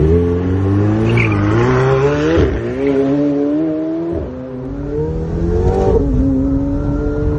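McLaren 720S's twin-turbo V8 accelerating hard through the gears. The engine pitch climbs, then drops back at each upshift, about three times.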